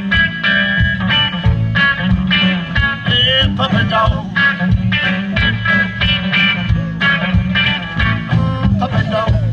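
Live amplified band playing: electric guitars, bass guitar and drums with a steady beat.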